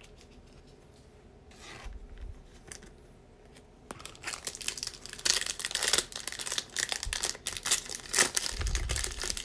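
Foil wrapper of a Bowman baseball card pack crinkling and being torn open by hand, starting about four seconds in after a quiet stretch.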